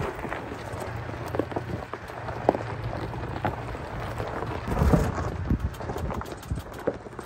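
Tyres of a pickup truck crawling slowly over a rocky dirt trail: gravel crunching and loose stones clicking and popping under the tread over a steady low rumble, with a heavier thump about five seconds in.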